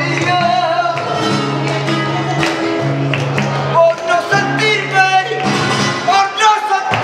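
A man singing a flamenco-style song with wavering, ornamented vocal lines, over long held low notes of an accompaniment, with listeners clapping palmas along.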